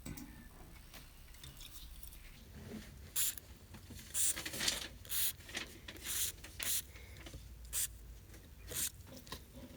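Short hissing bursts of aerosol contact cleaner sprayed onto a PS5 controller's analog-stick potentiometer before it is closed up: several quick sprays, starting about three seconds in.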